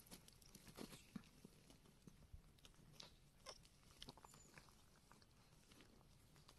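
Near silence with faint, scattered small clicks and crinkles, the sort made by handling a newborn kitten on a plastic sheet.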